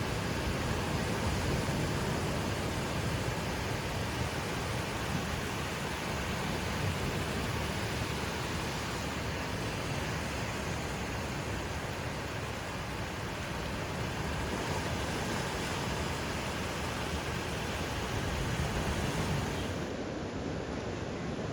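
Ocean surf breaking and washing up on a beach: a steady rush of waves that swells and eases. Near the end the hiss loses its highest part abruptly.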